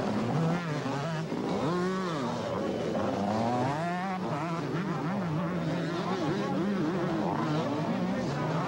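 Several two-stroke motocross bikes racing, their engines revving up and falling back in pitch again and again, overlapping one another.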